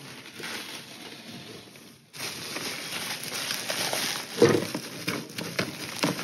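Hands rustling and crinkling plastic bubble wrap among styrofoam packing peanuts in a cardboard box, with a louder burst of handling noise about four and a half seconds in.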